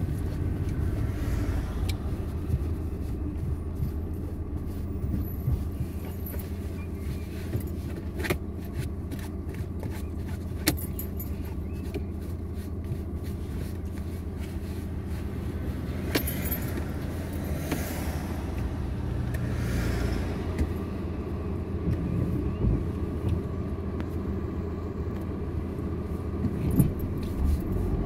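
Steady low rumble inside a car's cabin, from the engine and the road, as the car creeps up in traffic and idles at a light. Scattered light clicks and ticks come through, thickest a third of the way in.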